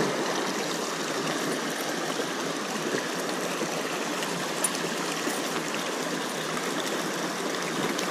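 River water running over rocks in a shallow riffle: a steady rushing sound.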